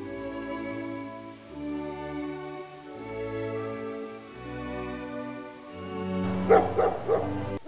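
Slow, sad bowed-string music, violin and cello, holding long chords that change every second or so. Near the end, a puppy yelps a few times over the music.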